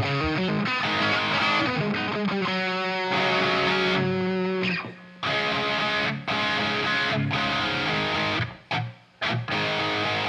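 Electric guitar with distortion played through an amplifier for a sound check: chords and held notes, stopping short a few times and cutting off at the end.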